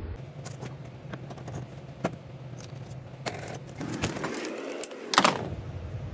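Metal parts of a 700R4 automatic transmission clinking and scraping as they are handled and pulled apart during a teardown, with a louder metallic clatter about five seconds in.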